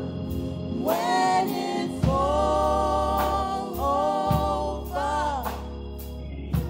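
Women singing a gospel song into microphones, holding long notes over sustained organ chords, with a steady beat underneath.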